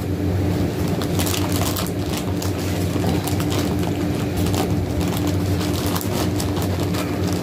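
Crinkling of a clear plastic package being handled and opened, in many short irregular crackles, over a steady low hum.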